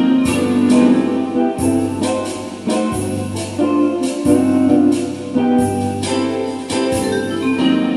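Instrumental music played on an electronic keyboard, a run of plucked, guitar-like notes over a repeating bass line.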